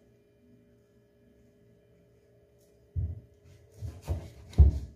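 A faint steady hum, then from about three seconds in a handful of knocks and thumps, the loudest near the end: a kitchen knife and banana halves being handled on a plastic cutting board.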